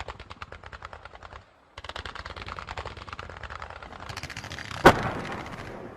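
Firecrackers going off in a rapid string of pops, about ten a second. There is a brief break, then a denser run with one loud bang about five seconds in.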